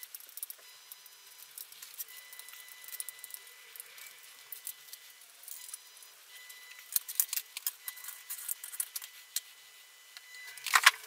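Small plastic clicks and rattles as the body shell of a Bachmann Class 37 model diesel locomotive is worked loose and lifted off its chassis. The clicks come irregularly, grow busier over the last few seconds and end in a louder cluster.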